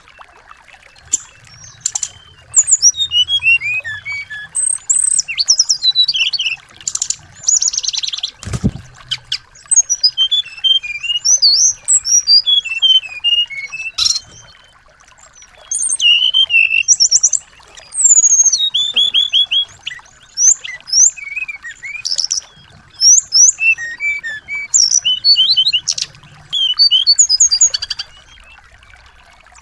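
Small songbirds chirping and trilling in fast, high phrases, in bursts with short pauses between them, over a faint steady high hum. A single brief thump about eight seconds in.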